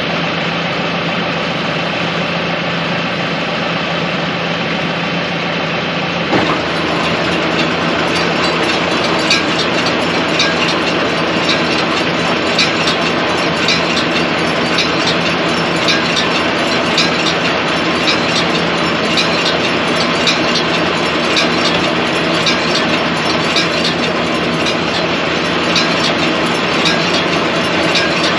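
Tractor engine running steadily. About six seconds in the sound changes, and a clatter of sharp metallic ticks and clanks runs over it from then on.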